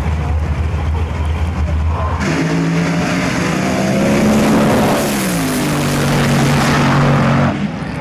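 Nitro Funny Car at full throttle on a drag strip: after a steady low rumble, the engine sound jumps to full loudness about two seconds in. Its note falls in pitch as the car passes and runs away down the track, and the sound cuts off abruptly near the end.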